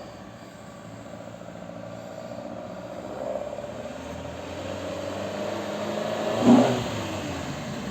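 Alfa Romeo GT 1750's twin-cam four-cylinder engine running after its restoration, growing gradually louder, with a brief sharp burst of sound about six and a half seconds in.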